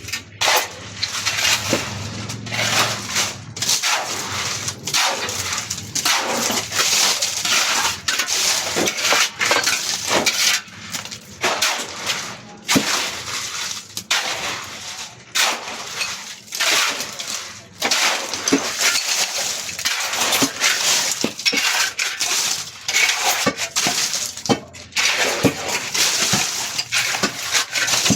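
Construction work: rubble or gravel crunching and scraping under repeated, irregular strokes, with scattered sharp knocks.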